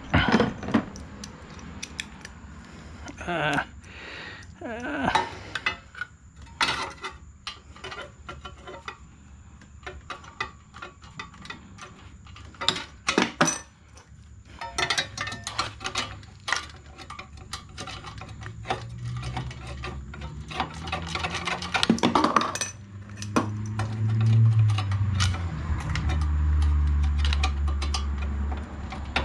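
Metal hand tools and parts clinking and knocking against each other in short irregular clicks. A low hum builds up over the second half.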